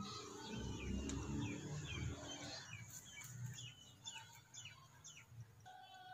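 Small birds chirping: a run of short, quick chirps that fall in pitch, about two a second, with a low rumble under them for the first two seconds or so.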